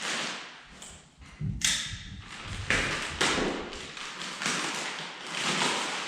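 Packaging being handled: repeated rustling and scraping, with a dull thump about a second and a half in.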